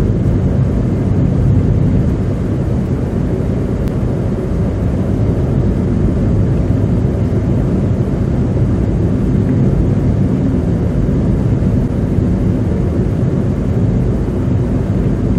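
Steady low rumble of a car driving on a slushy, icy winter road, heard from inside the cabin: road noise from its Goodyear tyres running through slush and over ice, with the engine underneath.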